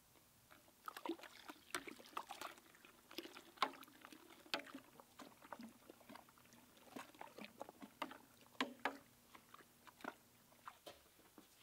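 A long spoon stirs a large stainless steel brew pot, clinking and scraping against the metal in irregular sharp clicks, while yeast starter is poured in from a glass flask: the yeast being pitched into the wort. The clicking starts about a second in.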